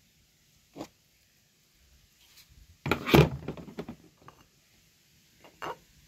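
Handling knocks and a rubbing scrape from a liquid-filled plastic container being moved on a wooden counter, loudest about three seconds in, with a few lighter knocks before and after.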